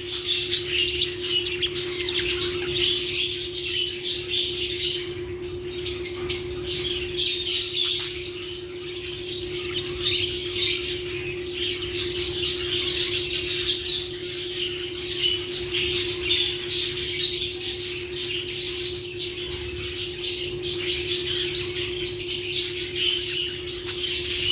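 Lovebirds chattering: a continuous stream of rapid, high-pitched chirps and squawks. A steady low hum runs underneath.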